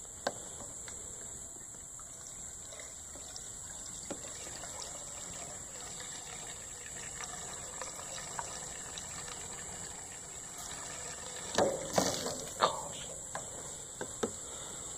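Liquid pouring steadily from a plastic can. A few knocks and rattles sound near the end.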